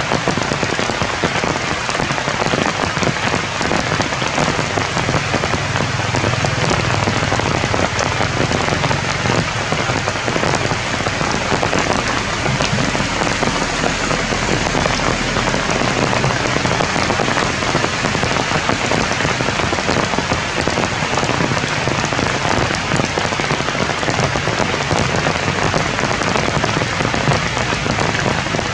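Steady rain falling on forest leaves, an even hiss with scattered single drops.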